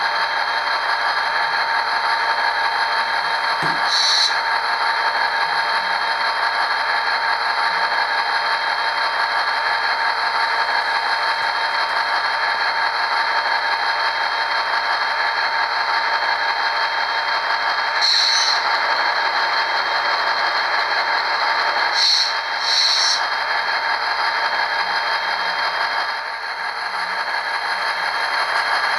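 An HO-scale VIA Rail F40PH-2D model locomotive's onboard sound system playing a steady diesel engine sound through its small speaker as the model creeps along at speed step one. A few short high-pitched sounds come at about 4, 18, 22 and 23 seconds in.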